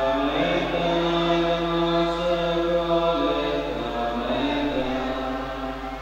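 A slow hymn sung during Communion, with long held notes that change pitch every second or so. A steady low electrical hum lies beneath.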